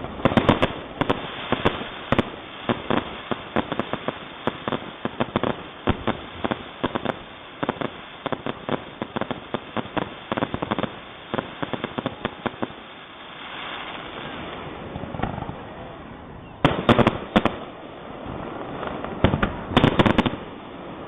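Fireworks finale: a rapid barrage of aerial shell bursts and crackling reports for about twelve seconds, a short lull, then two more clusters of loud bangs near the end.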